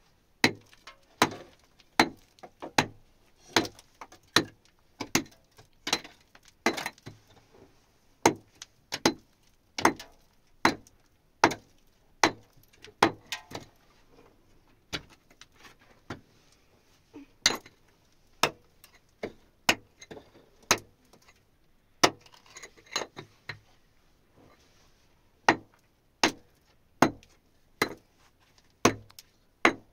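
A hand tool striking hard material over and over, about one to two sharp blows a second, with short pauses about halfway through and again later on.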